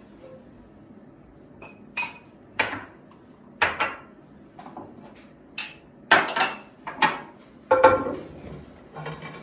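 Kitchen dishes and utensils clinking and knocking: about ten sharp, irregular clinks, some with a short ring, starting about two seconds in.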